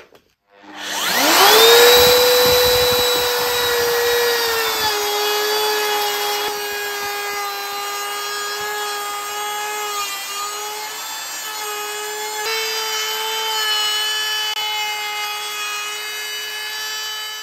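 Handheld electric router spinning up with a rising whine about a second in, then running steadily while its bit cuts a slot along the back of a wooden board. Its pitch settles a little lower a few seconds in.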